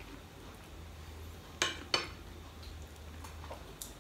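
Metal fork and knife clinking against a plate while eating: two sharp clinks a third of a second apart, a little over a second and a half in, with a few faint ticks around them.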